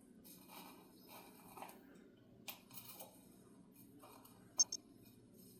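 Faint handling rustles and small clicks from a USB-rechargeable plasma arc igniter. About four and a half seconds in, two short, sharp crackles come in quick succession.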